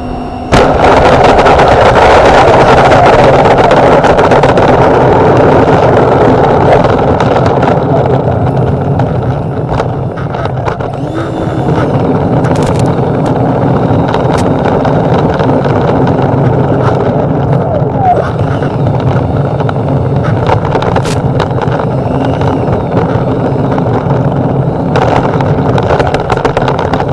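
Twin electric ducted fans of an RC A-10 model, heard from the onboard camera, jump suddenly to a loud rushing whine about half a second in and then run steadily. The model is rolling on tarmac, and there are a few short clicks and knocks.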